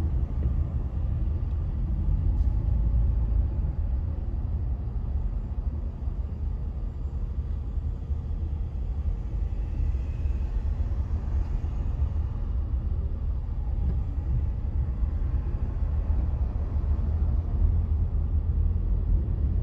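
Steady low rumble of a vehicle's engine and road noise, heard from inside its cab.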